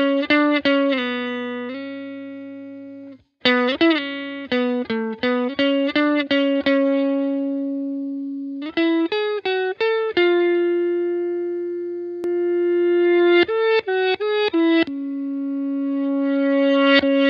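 Solo guitar music with no singing: quick runs of plucked notes alternating with long held notes that ring out, and a brief break about three seconds in.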